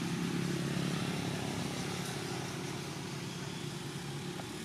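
A motor engine running steadily nearby, a low even hum that is a little louder in the first half.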